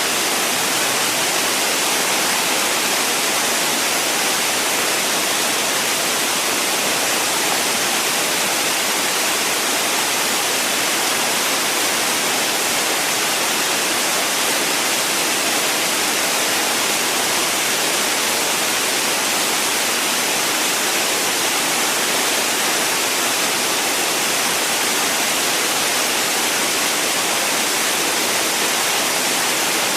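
Waterfall rushing steadily: a constant hiss of falling water, with little deep rumble.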